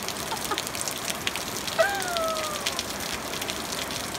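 Steady heavy rain, with many small drop ticks, pattering down. About two seconds in, a single falling vocal cry lasts about a second.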